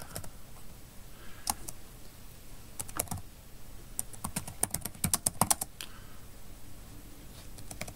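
Typing on a computer keyboard: short runs of keystrokes with pauses between them, the busiest run about five seconds in.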